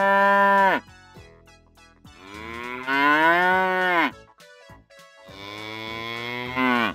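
Cow mooing three times: a moo already sounding that ends under a second in, a longer moo in the middle that rises and falls in pitch, and a third that ends near the end.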